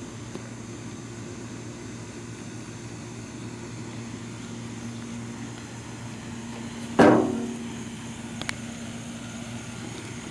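Yamaha YFZ450R SE's single-cylinder four-stroke engine idling steadily through a full Rossier aftermarket exhaust, with one sharp throttle blip about two-thirds of the way through, the revs dropping quickly back to idle.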